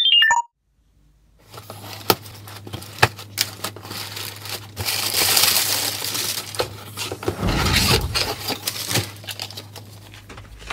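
A short falling jingle ends right at the start, then a package is handled and opened by hand: plastic and paper packaging crinkling and rustling, with irregular clicks and knocks, busiest around the middle, over a faint steady hum.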